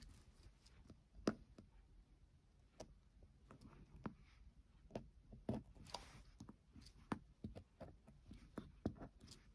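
Faint, scattered clicks and soft taps of hand work: a plastic disposable lighter pushing pins into nylon paracord to hold it in place.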